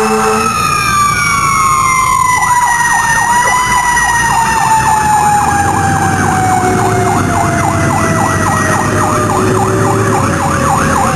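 Fire engine running with its sirens: a mechanical siren winding down in one long falling wail, while from about two seconds in an electronic siren yelps over it in rapid, repeated sweeps. An air horn blast cuts off right at the start, and the engine rumbles beneath.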